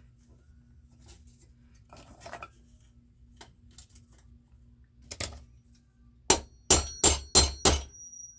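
Hammer blows driving solid rivets by hand: a single knock about five seconds in, then five quick, sharp metallic strikes with a high ringing tone.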